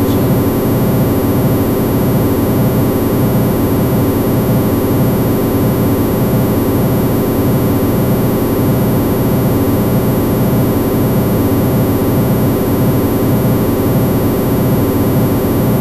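Two-operator FM synthesizer with feedback, running in a web browser and playing a randomly chosen preset: a loud, steady, noisy drone that cuts off suddenly at the end.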